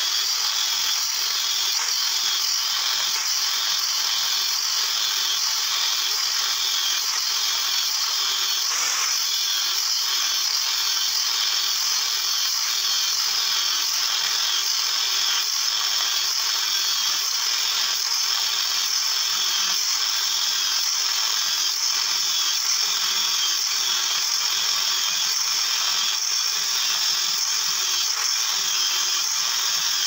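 Angle grinder with a cutting disc running under load, cutting into a refrigerator compressor's metal casing in a steady, unbroken high whine.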